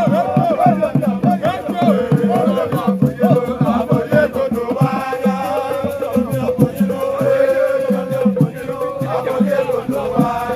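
Nyamkpe masquerade music: several voices chanting over a quick, steady drum beat.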